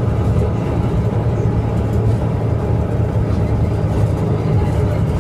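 Diesel engine of a Scania K310IA 6x2 articulated bus running steadily with a deep, even drone.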